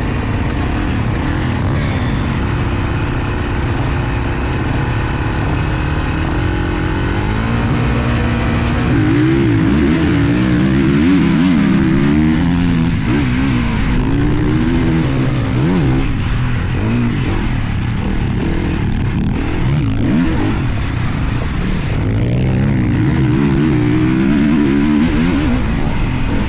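Motocross bike engines running hard, their pitch climbing and dropping again and again with the throttle and gear changes. More than one engine is heard, and the sound grows louder about nine seconds in.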